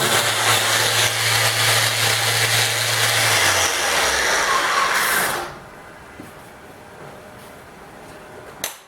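A 6-inch sander on 100-grit paper running steadily across a wooden table top, then switched off. Its motor hum drops in pitch and dies away about three and a half seconds in, and the rest of the noise cuts off about two seconds later. Quieter after that, with one brief click near the end.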